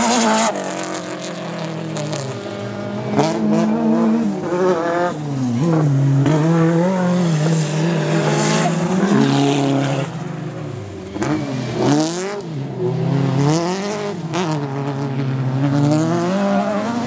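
Autocross race car engines on a dirt track, revving hard. The engine pitch climbs and drops over and over as the revs rise and fall, with the sound of cars passing close by.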